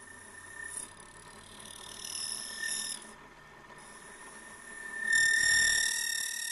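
Lathe running with a cutting tool working in the brass bushing's centre hole of a clock mainspring barrel. A steady high whine runs throughout, and a high-pitched squeal of the tool on the brass comes in two spells. The second spell, about five seconds in, is the louder.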